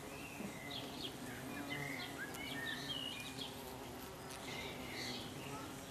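Bees buzzing steadily around flowers, with short bird chirps above the hum.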